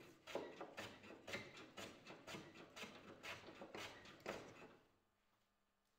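Faint, quick scraping strokes of a hand-held edge tool shaving ash wood, roughly two a second, stopping a little before the end.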